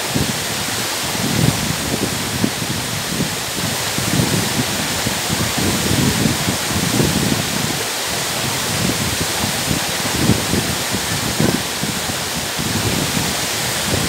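The Makhuntseti waterfall rushing steadily down a rock face: an even roar of falling and splashing water with constant low surges.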